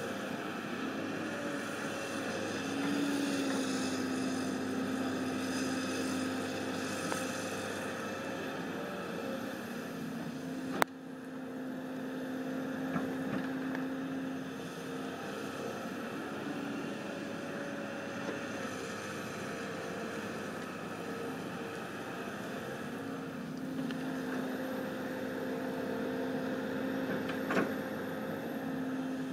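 John Deere 330C LC excavator's diesel engine running steadily under working load, its pitch rising and dipping slightly as the machine digs and swings. A single sharp knock stands out about a third of the way through.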